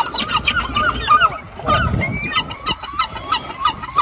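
A flock of birds calling: many short, hooked calls overlapping one another, several each second.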